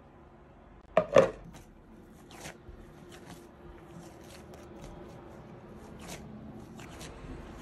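Two sharp clacks about a second in as a steel-rimmed glass lid comes off a glass mixing bowl and is set down. Then come soft presses and scattered light taps of yeast dough being kneaded by hand in the glass bowl.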